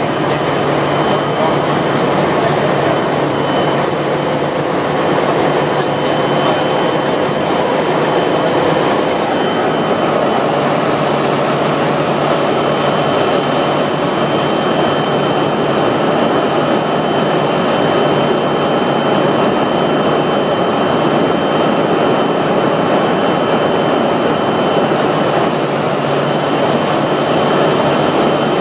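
Kodiak's single PT6A turboprop engine and propeller running steadily during the landing approach, heard from inside the cabin as a dense, even drone with a thin high turbine whine over it.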